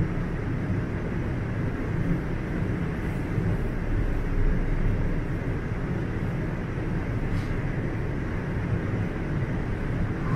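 Steady low hum and rumble of a subway train standing at a terminal platform, its ventilation and onboard equipment running while it waits to depart.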